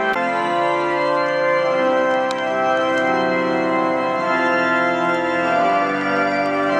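Organ playing slow, held chords that change every second or so, with a short click right at the start.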